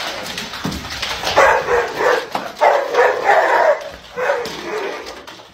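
A dog barking, about four or five separate barks a second or so apart.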